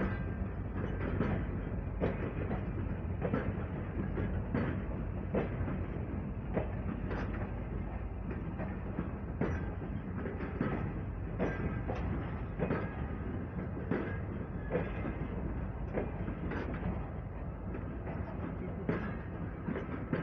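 Passenger coaches rolling past, their wheels clicking over the rail joints every second or so, often in pairs, over a steady rumble of wheels on rail.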